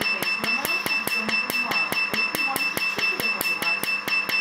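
Tattoo removal laser handpiece firing pulses against the skin in a rapid, even string of sharp snapping clicks, about eight a second, over a steady high-pitched whine from the machine.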